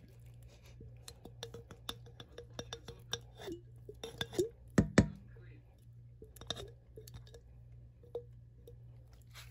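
Clinks and knocks of a plastic bottle and a spatula against a stainless steel mixing bowl as coconut strips are shaken and scraped into a cream mixture. The two loudest knocks come about five seconds in, over a steady low hum.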